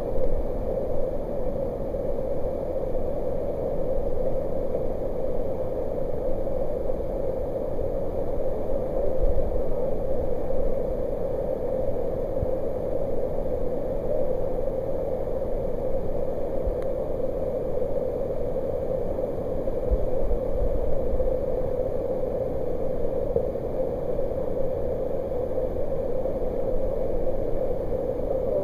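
Whitewater rapids rushing steadily as the river pours over rock ledges and churns below: a loud, even wash of water noise with a low rumble beneath.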